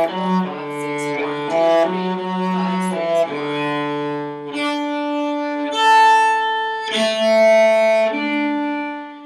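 Solo cello being bowed: a quick run of short notes in a lilting 6/8, changing about four and a half seconds in to longer held notes.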